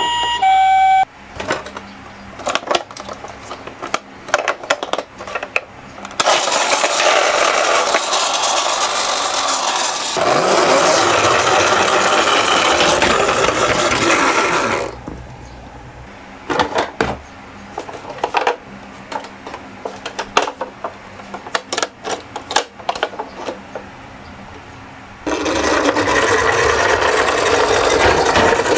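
Toy minicars rolling down a slope, their small wheels giving a loud, even rattle that lasts several seconds, twice, with scattered clicks and knocks between the runs. A two-tone toy siren cuts off about a second in.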